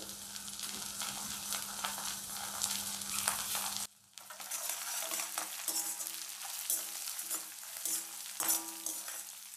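Sesame oil sizzling and crackling in a stainless steel kadai as a South Indian tempering of mustard seeds, dals, curry leaves and chillies fries, with a spoon stirring through it. The sound cuts out briefly about four seconds in.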